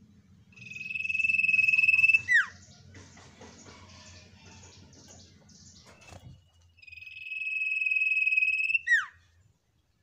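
An iora (sirtu) gives two long, high trills, a few seconds apart; each swells louder and ends in a quick downward slur.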